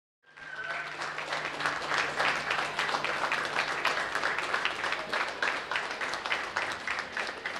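A crowd applauding: dense, steady clapping from many hands, starting just after the opening and easing slightly near the end.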